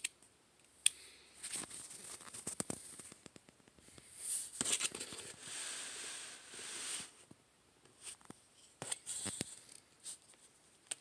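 Cardboard shipping box being cut and torn open: stretches of scraping and tearing, with scattered sharp clicks and taps.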